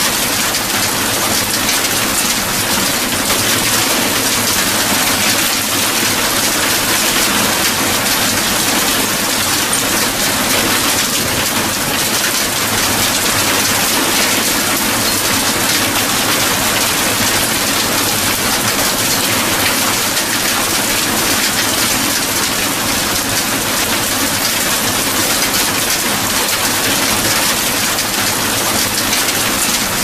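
Hail mixed with rain hitting hard ground: a dense, steady patter of many small impacts.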